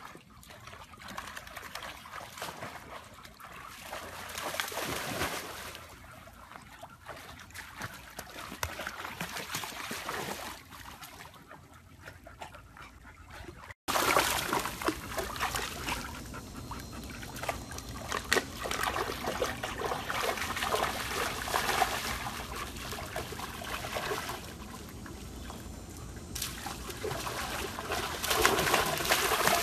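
Pool water splashing and sloshing as animals wade and leap through the shallow edge of a swimming pool, with many small splashes. The splashing grows louder after a break about halfway through and is loudest near the end.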